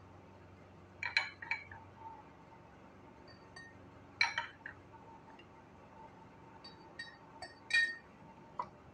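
A spoon clinking against a cup as cornflour is spooned in for a slurry. There are separate clinks with a brief ring: a few in the first half and a quicker cluster near the end.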